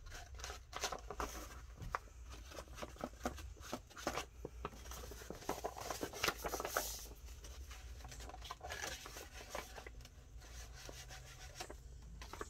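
Paper being distressed by hand: quick, irregular scratching and scraping strokes with light taps.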